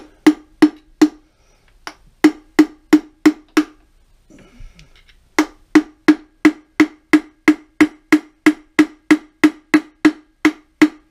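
Hammer driving a copper drift against the cast-iron apron of a Pratt & Whitney Model B lathe to break loose a seam that is painted shut. Sharp ringing strikes come about two and a half a second: three, then five, then a steady run from about halfway through.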